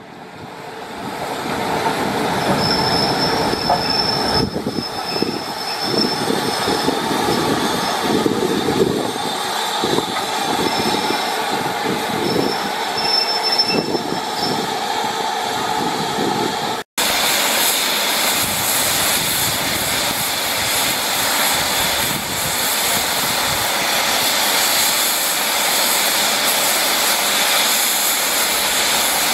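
LMS Jubilee Class steam locomotive rolling past slowly, its wheels giving intermittent high squeals over uneven clanking on the rails. After a break about halfway through, a steady loud hiss of steam from the locomotive.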